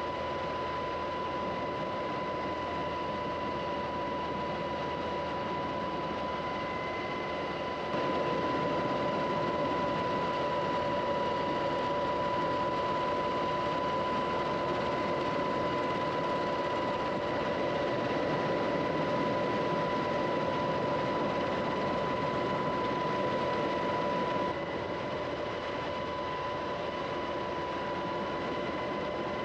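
Steady aircraft engine noise with a constant high whine. It gets louder about 8 seconds in and drops back about 24 seconds in.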